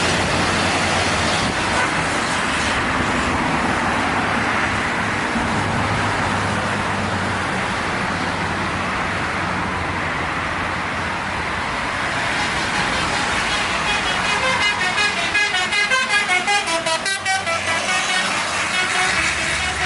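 Steady road traffic noise, then about two-thirds of the way in a bus's telolet horn plays its fast, warbling multi-note tune for about four seconds.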